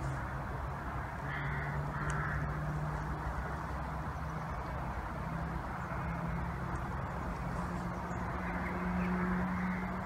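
Low, steady hum of a diesel locomotive's engine approaching unseen through a tunnel, its pitch stepping slightly higher and loudest near the end. Two short bird calls come about one and two seconds in.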